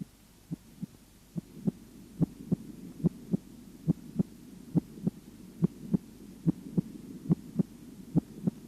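Human heart sounds heard on auscultation: a regular lub-dub rhythm of paired beats, the first and second heart tones, at a little over one beat per second. A faint steady hum runs underneath from about one and a half seconds in.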